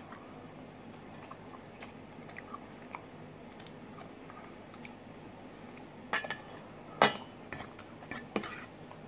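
Chewing a mouthful of salad, with a metal fork clinking and scraping against a stainless steel bowl. There are a few small clicks early on and several sharper clinks in the last three seconds.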